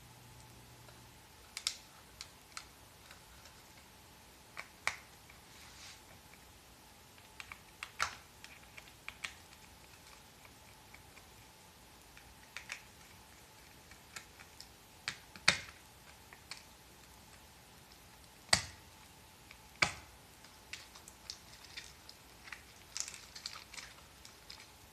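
Irregular light clicks and taps of small plastic and metal parts being handled during a travel kettle repair, a few sharper knocks among them.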